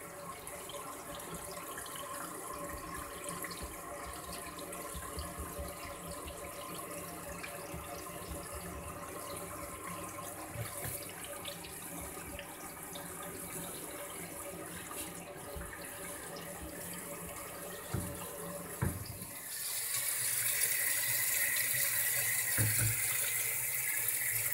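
Tap water running into a stainless-steel kitchen sink and down through the reassembled plastic drain trap, flowing away freely now that the clog is cleared. A couple of light knocks come near the end, and then the splashing of the stream on the steel gets louder.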